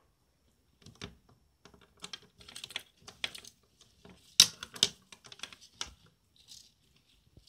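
Hands fitting a shoulder strap and its clip to a plastic Turnigy 9X radio transmitter: irregular clicks, taps and rustling of the fabric strap, with two sharp clicks about halfway through.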